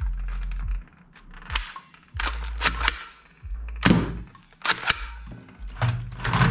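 Sharp plastic clacks and snaps from a toy pump-action shotgun being pumped and handled, several in irregular succession.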